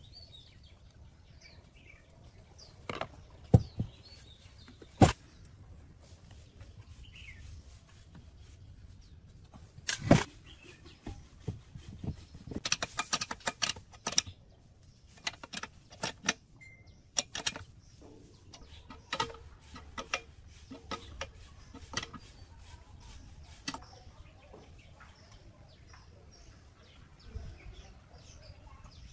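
Sharp metallic clicks and knocks of hand tools on an electric water pump being reassembled: a screwdriver on the fan-cover screws, then an open-end wrench on the mounting bolts, with a quick run of clinks midway. Birds chirp faintly in the background.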